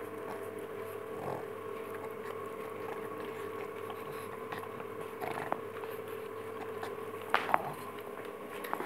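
A pug licking and biting at an orange ice lolly on a stick, with scattered short wet clicks; the loudest is a pair about seven and a half seconds in. A steady hum runs underneath.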